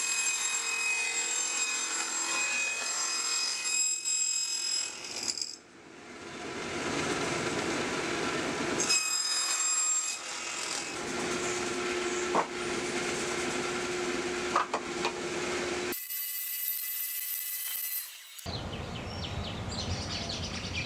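Table saw running and cutting through small plywood boxes, the blade whining as the wood is pushed through, in several separate cuts. Near the end a different scraping, handling sound takes over.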